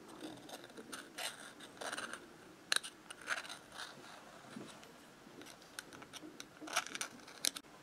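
Small metal pick scratching and ticking against the round metal housing of a moped carburettor while a cork gasket is worked into its groove. Light, irregular scrapes with a few sharper clicks.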